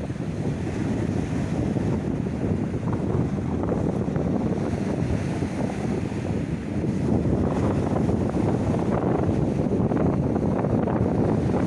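Mediterranean Sea waves washing in, with wind buffeting the microphone as a low rumble. It grows a little louder about seven seconds in.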